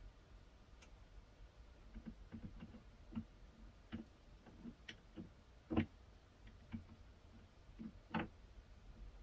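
Light, irregular clicks and knocks of a chuck key and metal parts being worked at a small lathe's chuck, the two loudest knocks about six and eight seconds in.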